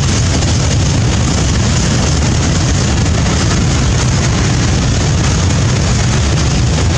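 Freight train of covered hopper wagons rolling past: a steady rumble of steel wheels on the rails.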